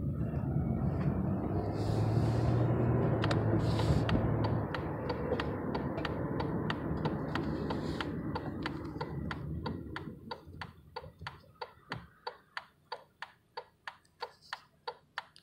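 A 2001 Chevrolet Impala's engine and road rumble, which fades away about two-thirds of the way through. An even ticking, about three clicks a second, runs beneath it and is heard on its own once the rumble dies.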